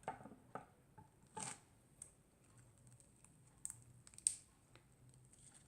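A few scattered small taps and clicks, with a brief scrape about one and a half seconds in and a sharper click about four seconds in: a slime-smeared table tennis paddle being handled.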